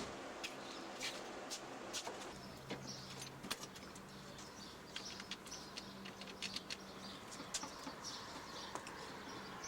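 Outdoor ambience with birds chirping faintly over a low steady hum, broken by scattered light clicks.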